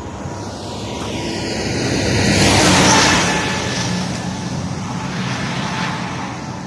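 A road vehicle passing close by: its noise swells to a peak about three seconds in, then fades away.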